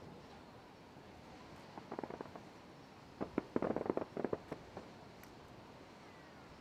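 Fireworks shells bursting in the sky, heard as two runs of rapid popping: a short string of pops about two seconds in, then a denser crackling run of pops from about three to nearly five seconds in.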